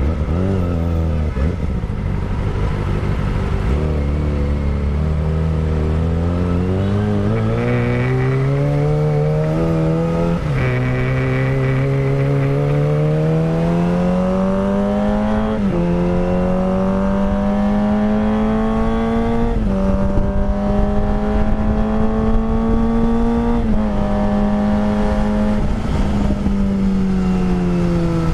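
Kawasaki ZX-25R 250cc inline-four through a Villan Pro 1 full-system racing exhaust, ridden hard: the engine note drops off, then climbs through the revs with four quick upshifts, each a sudden dip in pitch, and eases off again near the end.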